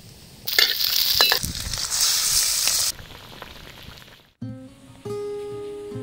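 Pork belly pieces sizzling in hot fat in a wok, loudest for about two seconds and then quieter. Acoustic guitar music begins near the end.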